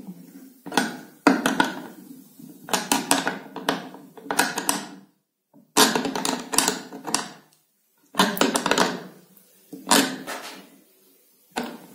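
A 13 mm spanner tightening a bolt on a 3D-printed plastic carriage: short bursts of metal clicking and scraping with each turn of the spanner, about six of them, spaced a second or two apart.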